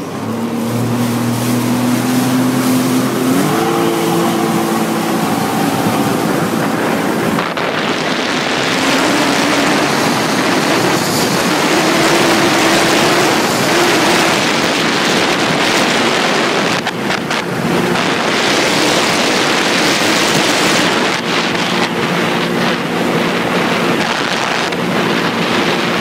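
Motorized watercraft engine running, its pitch rising about three and a half seconds in; from about seven seconds a loud rush of wind and water takes over as the craft speeds across the water, with the engine tone still faintly heard through it.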